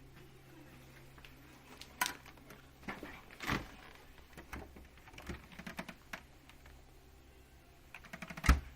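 Scattered clicks and knocks of objects being handled, with a louder knock near the end.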